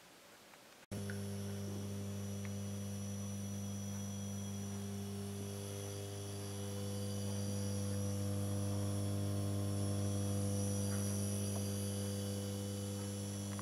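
Steady mains hum from a 100 amp variable voltage transformer, four stacked toroidal variacs, powered up. The hum starts abruptly about a second in and grows a little louder midway.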